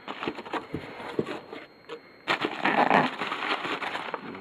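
Cardboard shipping box and its packing being handled and opened by hand: scattered clicks and scrapes, then a louder burst of rustling from about two seconds in that lasts about a second.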